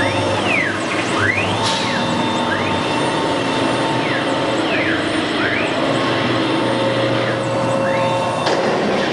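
CNC router running: steady machine noise with a constant tone, and drive motors whining up and down in pitch, over and over, as the axes move.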